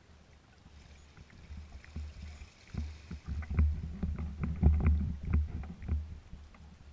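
Small waves slapping and knocking against a kayak's hull, a low rumble with a run of dull thumps and clicks that builds about three seconds in and eases off near the end.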